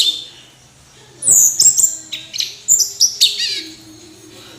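Orange-headed thrush singing: after a pause of about a second, a quick run of loud, high, slurred whistled notes, which tails off near the end.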